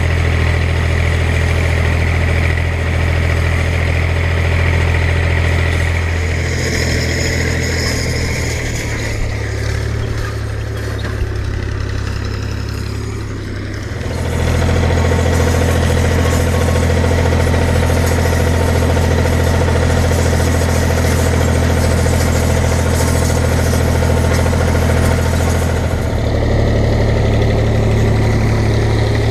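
Fiat 540 Special tractor's four-cylinder diesel engine running steadily while working, close up at first with the exhaust stack right by the microphone. Its tone shifts abruptly a few times and dips slightly in level for a moment.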